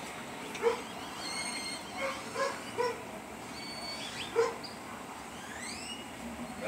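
A dog barking faintly, about five short barks spread across a few seconds.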